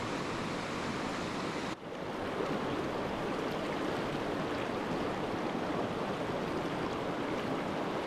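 Water of a small rocky creek running over stones in a riffle: a steady rushing hiss. It drops out for an instant just under two seconds in, then carries on as before.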